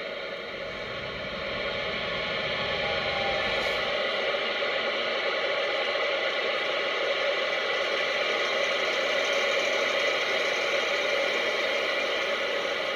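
Steady hiss of CB radio static from the radio's speaker between transmissions, getting a little louder about a second and a half in, with a low vehicle rumble under it for the first few seconds.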